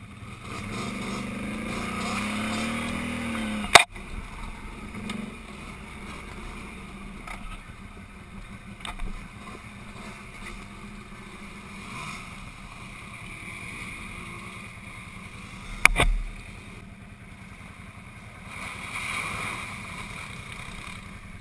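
ATV engines running on a woodland trail, one revving up and dropping back in the first few seconds, then fainter engine noise as the quads ride off. Two sharp knocks, about four seconds in and about sixteen seconds in, are the loudest sounds.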